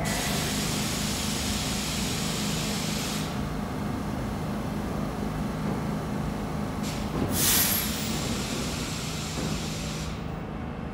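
New York City Subway train standing at the platform with a steady mechanical hum. Air hisses for the first three seconds, then a short, loud blast of air comes about seven and a half seconds in, typical of the train's air brakes venting.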